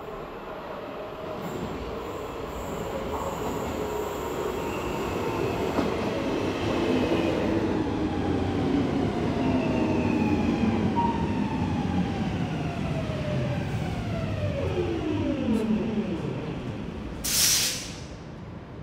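Helsinki metro train coming into an underground station and braking. Its sound builds, and several whining tones fall steadily in pitch as it slows. A short, loud hiss of air comes near the end as it stops.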